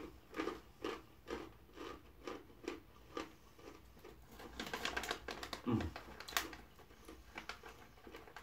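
Chewing crunchy wasabi-coated dried green peas close to the microphone: crisp crunches about two a second. About halfway through, a denser crackly rustle of the plastic snack bag, then more crunching near the end.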